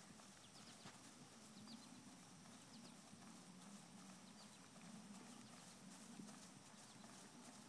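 Faint hoofbeats of a horse moving across grass under a rider, heard from a distance and barely above the quiet of the open field.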